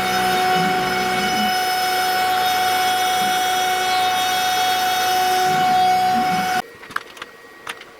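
CNC router spindle running with a steady high whine as a 6 mm bit cuts wood, with an uneven lower rumble from the cut. It cuts off suddenly about six and a half seconds in, leaving a few faint clicks.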